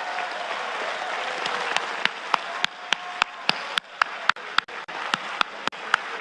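Audience applauding. About two seconds in, the clapping turns rhythmic and in unison, at roughly three to four claps a second.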